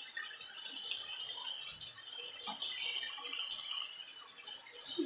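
Bathroom sink tap running hot water, a steady rough hiss.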